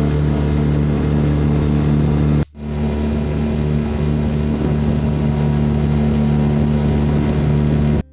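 Small boat's outboard motor running steadily, breaking off abruptly for a moment about two and a half seconds in and again near the end.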